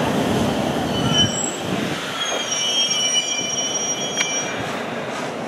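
JR Central 313-series electric train braking to a stop at a platform: a low rolling rumble, then from about two seconds in a high multi-tone squeal as it brakes. A sharp click comes near the end.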